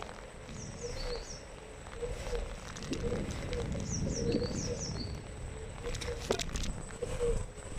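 Small birds chirping: two short runs of quick falling chirps, about half a second in and again about four seconds in, over a steady low rumble and a faint wavering hum. A sharp click a little after six seconds in.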